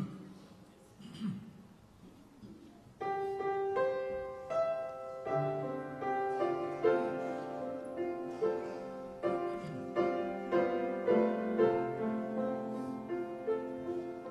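Grand piano playing the introduction to a choir anthem: a few soft rustles, then from about three seconds in a steady run of chords with a melody over them.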